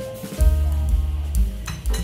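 Background music: a melody of held notes over a pulsing bass line, with a few short clicks near the end.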